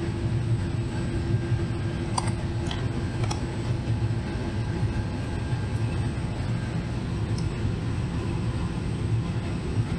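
Steady low mechanical hum, with a few light clicks about two to three seconds in from a Phillips screwdriver working screws out of a plastic fog light bezel.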